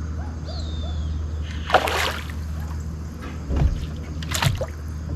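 Water splashing as a hooked bass thrashes at the surface during the fight: a loud splash about two seconds in and a second one near the end.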